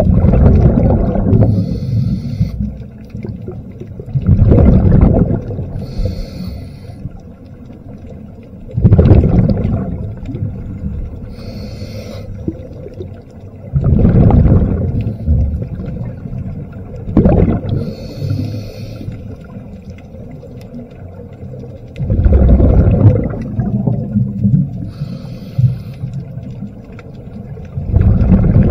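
A diver's breathing heard underwater: a loud, low, bubbling exhale about every four to five seconds, with a fainter hiss between the breaths.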